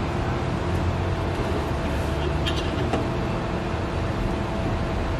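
Steady mechanical hum and low rumble, with a few light clicks about two and a half seconds in as the plastic electric fan shroud is set against the aluminium radiator.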